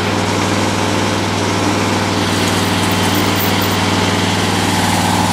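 Riding lawn mower engine idling steadily.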